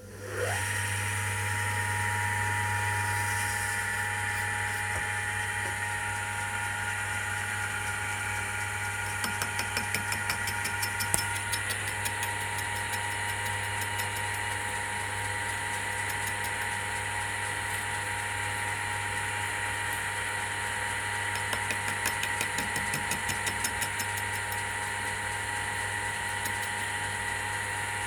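Mini lathe motor switched on, spinning up and then running with a steady hum and whine. Twice it carries a short spell of fast ticking.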